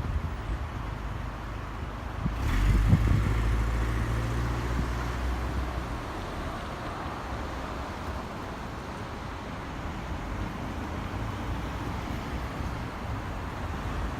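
Steady road traffic, with a vehicle passing loudest from about two and a half to five seconds in, its engine a low drone. Gusts of wind buffet the microphone.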